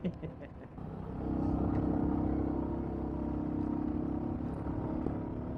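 Suzuki Gixxer's single-cylinder engine running while the motorcycle is ridden, with wind and road noise. The engine note grows louder about a second in, holds steady, then eases slightly past the middle.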